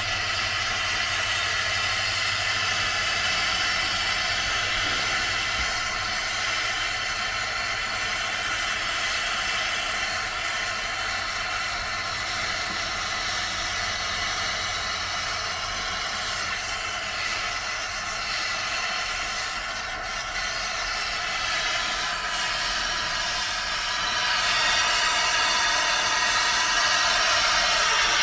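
Steady machine noise: an even hiss with several constant whining tones, getting louder about 24 seconds in.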